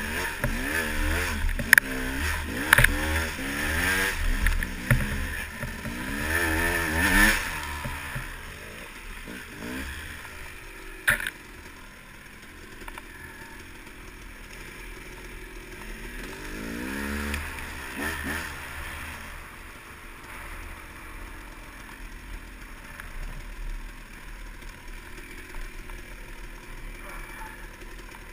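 Dirt bike engine revving up and down over and over as it is ridden along a rough trail, with sharp knocks and clatter from the bike over the ground. The revving is loudest in the first several seconds, dies down, and rises again once about two thirds of the way through.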